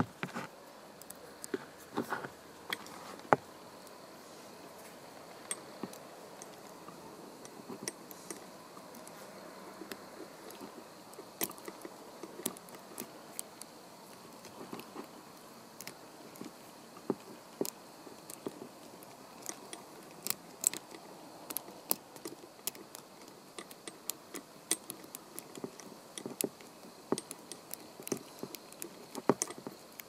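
Lock pick and tension wrench working the pins of an FTH Thirard Land 75 brass padlock: small metallic clicks and scrapes at an irregular pace, some much sharper than others.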